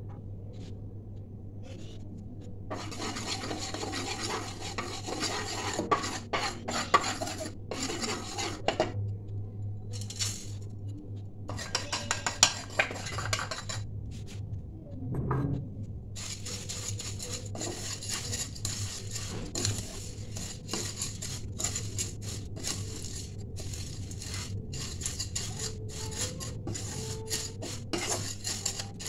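Vermicelli frying in ghee in a metal kadai while a wooden spatula stirs and turns it: repeated scraping and knocking against the pan with a rustling hiss, in stretches with short pauses between them.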